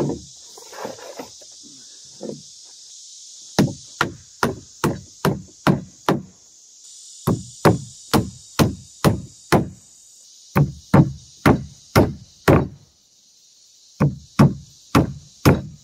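Hammer driving nails into a roof truss gusset: four runs of about six to eight blows, roughly three a second, with short pauses between runs. A steady high-pitched hiss runs underneath.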